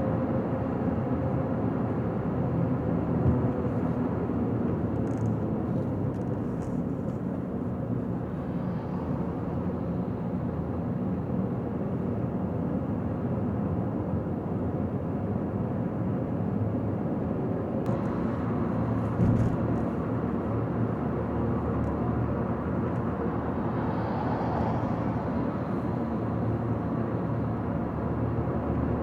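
A car driving steadily at highway speed: constant tyre and engine noise, with a brief low thump about three seconds in and another about nineteen seconds in.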